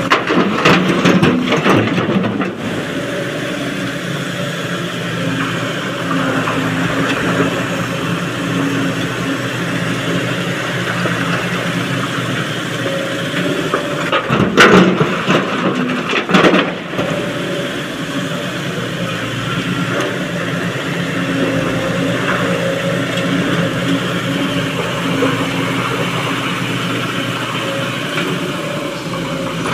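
A Sany excavator's heavy diesel engine runs steadily while its bucket drops broken rock into a dump truck's steel body. The rock clatters loudly on the steel in the first couple of seconds and again, loudest, about halfway through.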